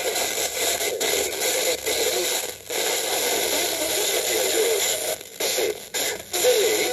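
FM radio receiver tuned to 90.7 MHz, pulling in Dream FM from Heraklion, Crete, over sporadic E: steady hiss and static with the station's programme faint underneath. The sound briefly drops out several times, mostly in the second half. It is the sound of a weak, fading long-distance signal, around 30 dBf at about 16–18 dB signal-to-noise.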